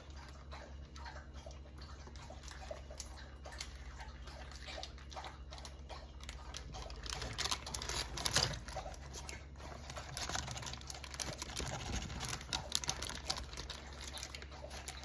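Irregular clicks, taps and scrapes of a utensil on a pan, with soft wet patter as roasted tomatoes and vegetables are scooped into a blender container. The handling gets busier and louder about halfway through.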